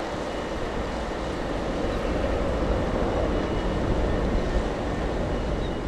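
Steady low rumble and hiss of a RORO cargo ship's engines as the ship moves off close by, growing a little louder about two seconds in.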